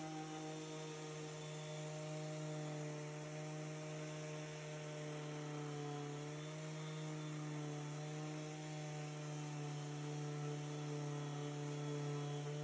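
Steady electrical hum: a low tone with several fainter steady tones above it, unchanging throughout.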